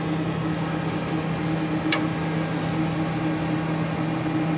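Steady hum of ventilation fans in a powered-up Boeing 737 MAX flight deck, with one sharp click about two seconds in.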